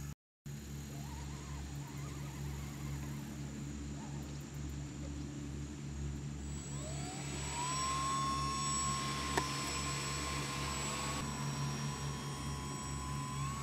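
Electric motor and propeller of a model airboat spinning up, a whine that rises about seven seconds in and then holds high and steady, over a steady low rumble. A single sharp click comes near the middle.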